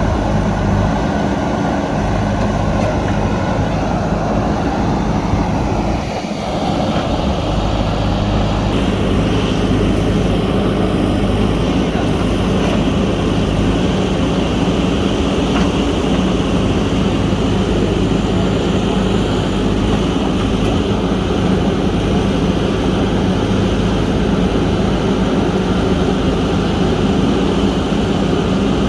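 JCB 3DX backhoe loader's diesel engine running steadily, with a brief dip in level about six seconds in.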